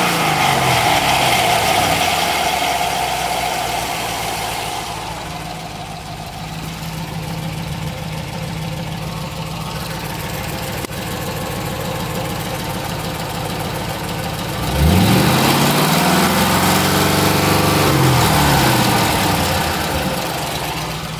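Engine coming down off a rev and settling to a steady idle, then revved sharply about fifteen seconds in, held briefly and let fall back toward idle.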